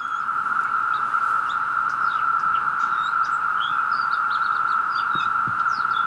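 Mating chorus of 17-year periodical cicadas (Magicicada septendecim): many males calling together in one loud, steady, even drone. Scattered short bird chirps sound over it.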